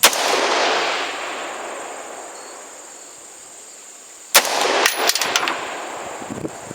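Two AR-15 rifle shots, one right at the start and one about four seconds later, each followed by a long rolling echo that dies away over a few seconds.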